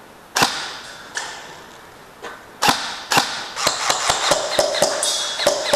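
Airsoft gunfire: sharp snapping shots and BB impacts. One comes about half a second in, two more near the middle, then a quick irregular string of shots in the last two seconds.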